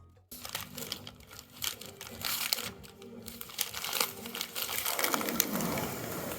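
Protective plastic film being peeled off a new boat deck hatch, crackling irregularly as it is pulled. The film is not coming away cleanly.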